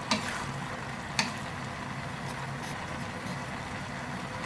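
Steady low mechanical hum, with two sharp clicks about a second apart near the start.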